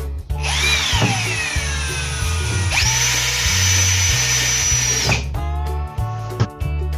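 Power drill driving a screw into the cabinet panel, its motor whining for about five seconds, settling to a steady high pitch, then stopping.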